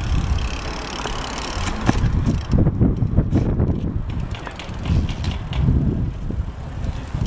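BMX bike riding on a hard surface: a fluctuating low rolling rumble with a few sharp knocks.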